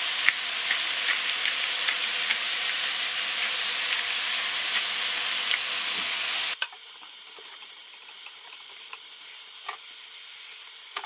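Chicken pieces and peas frying in a pan: a steady sizzle with scattered small pops as the peas' liquid cooks off. About two thirds of the way in, the sizzle drops abruptly to a quieter, thinner hiss.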